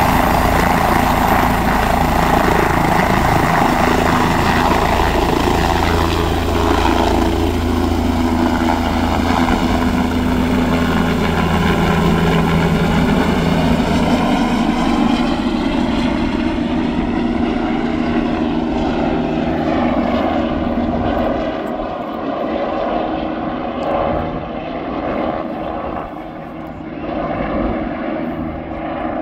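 Bell 407 helicopter's turboshaft engine and four-blade main rotor at takeoff power, lifting off and climbing away. Loud and steady at first, then fading and losing its higher sounds over the last dozen seconds as it flies off.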